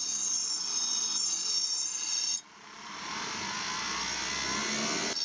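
Bench grinder grinding a steel lawn mower blade, a loud high-pitched ringing grind. It breaks off suddenly a little over two seconds in, then builds back up as the blade is pressed to the wheel again.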